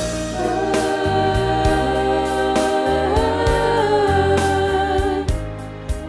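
Treble choir singing long held notes in harmony over an accompaniment track with a bass line and beat. The top voices step up in pitch about three seconds in, and the sound eases off slightly near the end.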